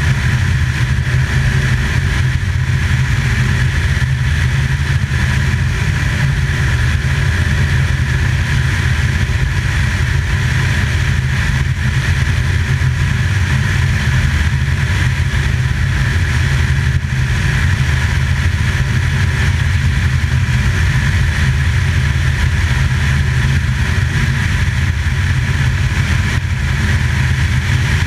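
Loud, steady engine and propeller drone heard from aboard the aircraft carrying the camera.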